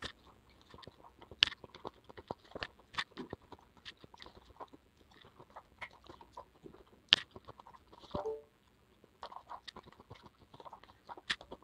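A person chewing soft, juicy pieces of fruit salad (papaya and watermelon) with small wet mouth sounds, while a spoon scrapes and clicks against the bowl a few times, the sharpest click about seven seconds in.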